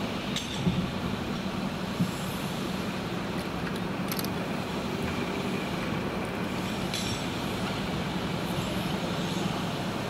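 Heavy vehicle engine running steadily with a low hum, with a few short clicks.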